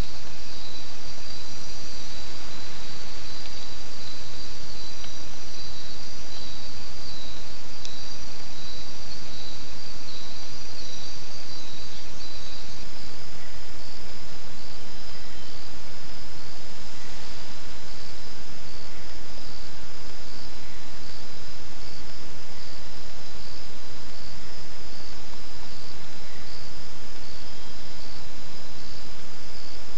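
Forest insects trilling in a steady, pulsing high-pitched chorus over a loud even hiss from a trail camera's microphone; the pattern of the chorus changes about 13 seconds in.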